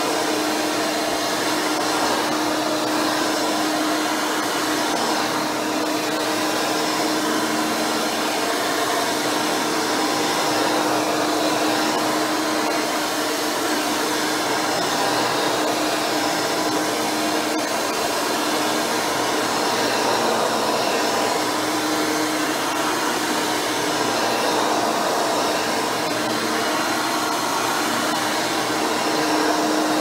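Hoover Turbopower 4000 upright vacuum running steadily over carpet. Its 7-amp motor drives a retrofit 20-blade fan impeller and a soft-nylon CWP brush roll, giving an even rush of air with a steady hum underneath.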